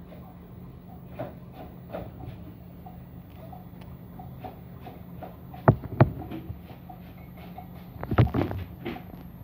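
Kitchen dishes and containers being handled on a counter: faint ticks, two sharp knocks a little past the middle and a short burst of clattering knocks near the end, over a steady low hum.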